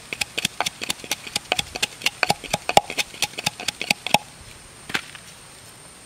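Wooden pestle pounding in a bamboo-tube mortar: quick, sharp knocks about six a second that stop about four seconds in, followed by one more knock about a second later.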